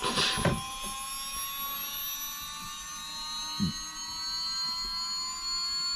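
Losi Promoto MX 1/4-scale RC dirt bike's flywheel spinning up: a jet-like whine of several steady tones slowly rising in pitch. A brief rush of noise comes right at the start.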